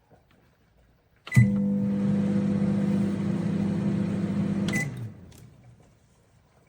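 Candy Smart CMG2071DS microwave oven starting with a click and a short beep about a second in, then running with a steady hum for about three and a half seconds, stopping with another click and beep as the hum winds down.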